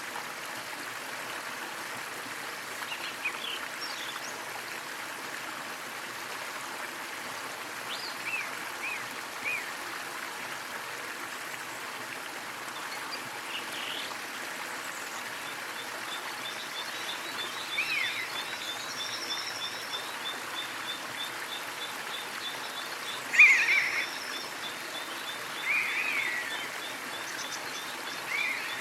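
Small waterfall splashing steadily, with birds giving short chirps here and there, the loudest late on. From about halfway, an even, rapid ticking call runs underneath.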